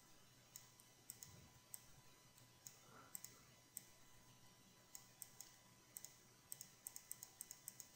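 Near silence with faint, scattered computer mouse clicks, coming quicker together in the last second and a half.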